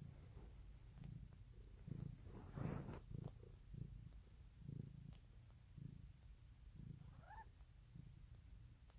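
Mother cat purring while giving birth, a low pulsing purr that swells about once a second with her breathing. A brief louder rustle comes about three seconds in, and a short high squeak near the end.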